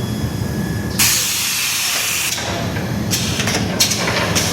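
A hiss from a diamond-segment socket welding machine for gang-saw blades, starting about a second in and lasting just over a second, then several short hisses. A steady low machine hum runs underneath.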